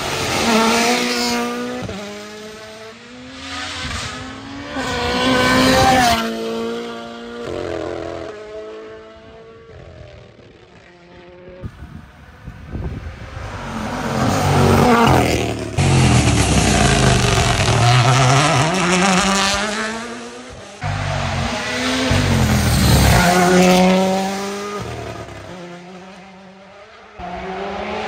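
Toyota GR Yaris Rally1 rally car's turbocharged 1.6-litre four-cylinder engine driven flat out, going past several times: the revs climb through quick upshifts, drop sharply on the brakes, and swell to a loud peak as the car goes by. Anti-lag crackle comes on and off the throttle.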